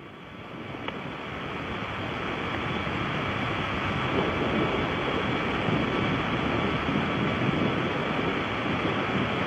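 A steady rushing noise that fades up over the first two to three seconds and then holds level, with faint steady tones under it.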